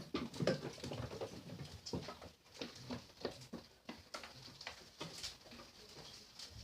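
Goats in a pen: a steady stream of irregular small knocks and shuffles as the animals move about.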